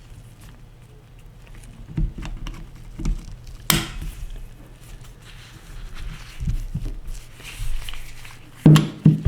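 Handling noise from a 1911 pistol being reassembled: scattered small metal clicks and knocks with soft rustles, one sharp click a little under four seconds in and a louder thump near the end.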